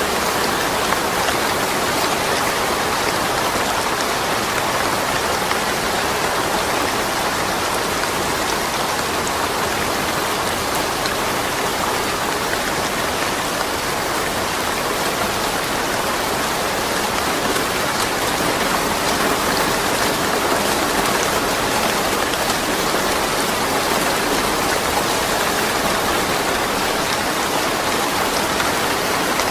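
Steady rain falling without thunder: an even hiss, flecked with fine tapping drops.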